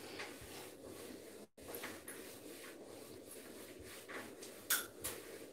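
Whiteboard duster wiping marker off a whiteboard in repeated scrubbing strokes, with a louder swipe near the end.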